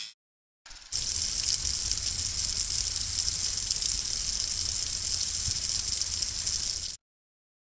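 Steady hissing gush of a spray nozzle jetting water into a freshly cut mortar slot to flush it out. It starts about a second in and cuts off abruptly near the end.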